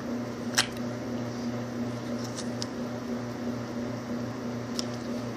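A steady low electrical hum, with a sharp click about half a second in and a couple of faint ticks near the end.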